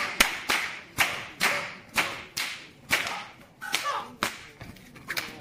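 Shaolin shepherd's whip cracking over and over as it is swung, about two sharp cracks a second, each followed by a short fading echo.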